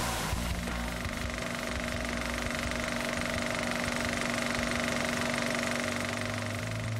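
Film projector running: a steady, rapid mechanical clatter with a constant hum.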